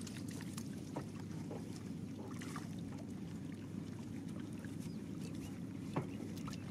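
Small fishing boat on the river: a steady low rushing noise of water and air around the hull, with a few light knocks, the sharpest about six seconds in.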